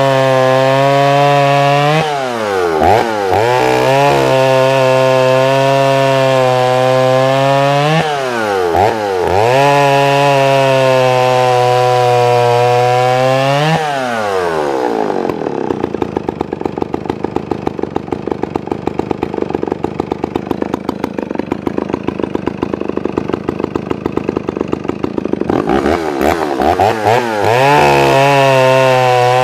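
Vintage Dolmar CA chainsaw's two-stroke engine running at high speed, its pitch dipping and recovering twice. About halfway through it drops to a pulsing idle, then revs back up to high speed near the end.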